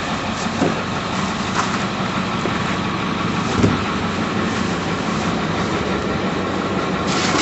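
An engine idling steadily, with a few light knocks over it.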